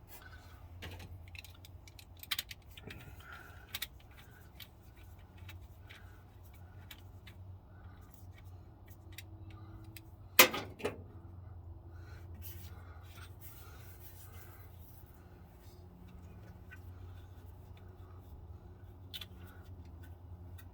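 Scattered light clicks and clinks of hand tools and parts being handled in an engine bay while hoses are worked loose, with one sharp metallic knock about halfway through. A steady low hum of outdoor background noise runs underneath.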